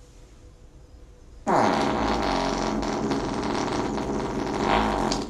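A long, loud fart from a dog lying on its back, starting about one and a half seconds in with a quick drop in pitch, then holding one steady pitch until it cuts off abruptly.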